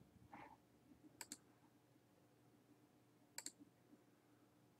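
Two faint double clicks of a computer mouse, about two seconds apart, otherwise near silence.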